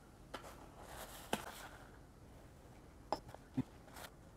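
Faint rustling of dry yerba mate leaves being scooped out of a paper bag with a spoon, with a few light clicks of the spoon.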